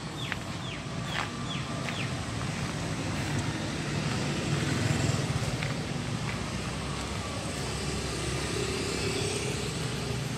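Road traffic going by: a steady low rumble of car engines and tyres that swells about halfway through. A few short, high, falling chirps sound near the start.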